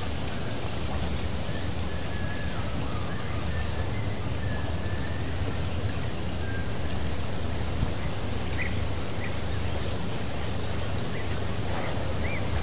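Steady rushing water noise, with faint short chirps here and there.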